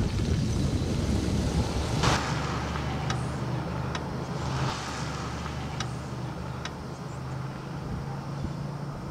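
Outdoor street ambience: a motor vehicle's engine running with a steady low hum that stops near the end, after a gust of wind on the microphone at the start, with a few faint clicks.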